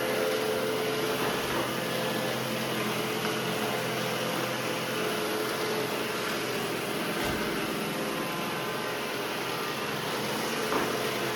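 Roomba j7 and Deebot 920 robot vacuums running: a steady motor and suction hum, with a light knock near the end.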